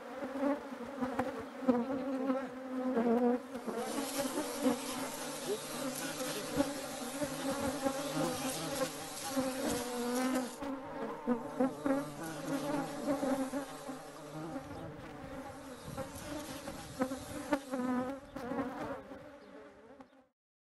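Bees buzzing, a steady wavering hum, with a hiss joining about four seconds in; the sound fades out shortly before the end.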